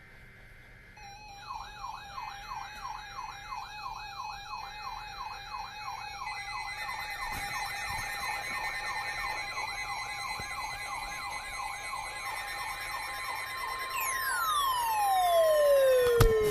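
Siren sounding in a fast rise-and-fall yelp, about three sweeps a second, over a steady tone. Near the end a loud tone slides steeply down in pitch.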